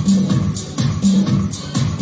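Loud electronic dance music with a steady beat: regular hi-hat ticks over a bass line whose note returns about once a second.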